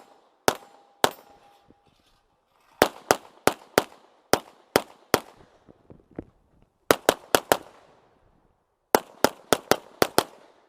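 Rapid fire from an Open-division Glock 9mm pistol: about twenty shots, in strings of two to seven a quarter to a third of a second apart, with short pauses between strings. Near the start a struck steel target rings for about a second.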